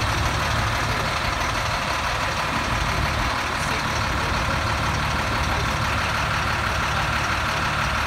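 Caterpillar 3116 inline-six diesel of a 1998 Blue Bird GMC CV200 school bus idling steadily, with a faint steady high whine above the low rumble.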